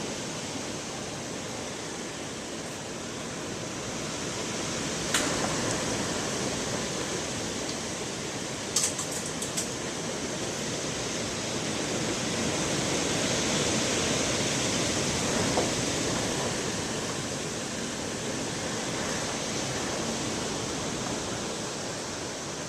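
Storm wind from Hurricane Irene, a steady rushing noise that swells and eases in slow gusts, with a few sharp clicks about five and nine seconds in.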